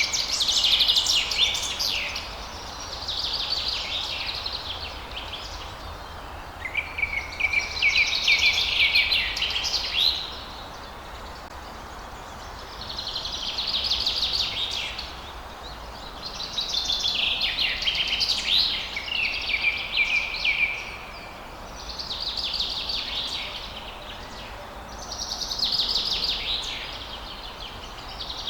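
Songbirds singing: high, trilling song phrases of a second or several seconds, seven of them, each following a short pause, over a steady low background rumble.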